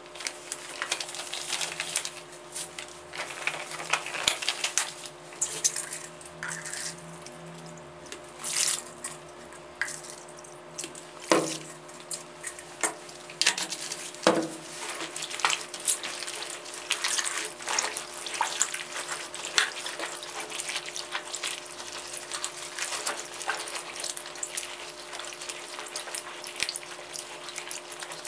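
Handling sounds of long rubber gloves being pulled on and a plastic bleach jug being picked up, with two louder knocks near the middle. Then water sloshes and splashes as gloved hands squeeze black clothes soaking in a plastic basin.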